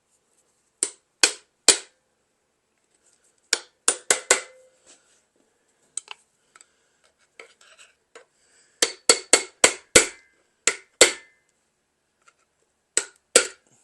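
Sharp metal-on-metal taps in short bursts of two to seven, with a faint ring after some of them: a wedge being driven between the 13B rotary engine's housing and plate to break the seal and separate them.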